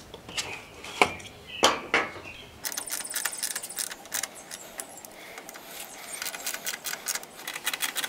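Light clicks and rattles of plastic parts being handled: a washing-machine control board, its plastic panel housing and wiring connectors. A few separate knocks in the first couple of seconds, then a dense stretch of quick small clicks.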